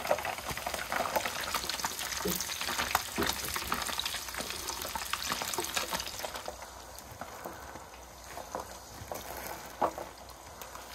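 Pretzel-breaded walleye chunks deep-frying in hot oil, a steady crackling sizzle with a few sharp clicks of metal tongs against the pan. The frying sounds softer from about six seconds in.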